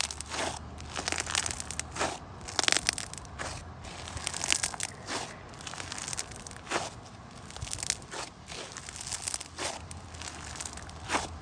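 Slime being squeezed, pressed and kneaded by hands, giving irregular crackles and pops several times a second.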